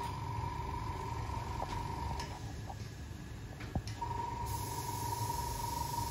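Small airbrush compressor running with a steady high whine that drops out for about a second and a half midway and then comes back, with a few light clicks in between. From about four and a half seconds in, a soft hiss of air from the airbrush joins it.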